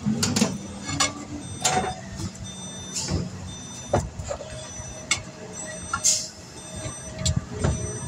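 Steel tire iron clicking and scraping against a motorcycle wheel rim as a new tire's bead is levered on by hand, with a foot pressing the sidewall down: about ten sharp, irregular clicks and knocks over a steady low hum.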